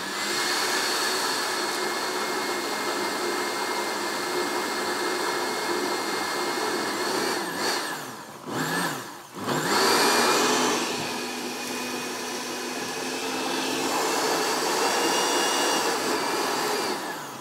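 Electric blender running, puréeing chickpeas with tahini, oil and a little water into hummus, a steady motor whine. About halfway through it cuts out briefly, then spins back up with a rising whine and runs until it stops near the end.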